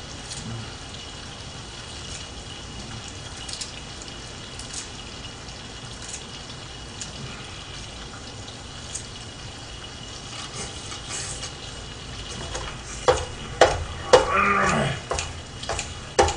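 Kimchi, tuna and onion sizzling steadily in a frying pan on a portable gas burner. Near the end, metal utensils knock and click against the pan several times, with a short wordless vocal sound among them.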